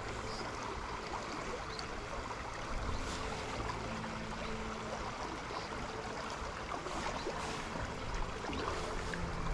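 Small stream running steadily over a shallow riffle: a continuous wash of flowing water.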